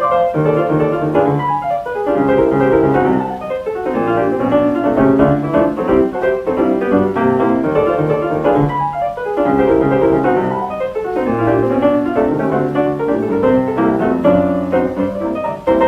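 Stride piano playing a busy, fast ragtime-style passage, heard from a 1930 78 rpm shellac record with the highs cut off, giving a dull, boxy sound.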